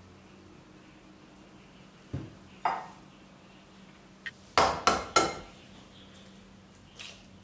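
An egg tapped three times in quick succession against the rim of a glass mixing bowl to crack its shell, each tap a sharp click with a short glassy ring. Before the taps come a soft knock and a clink of shell or glass, and a lighter knock follows near the end.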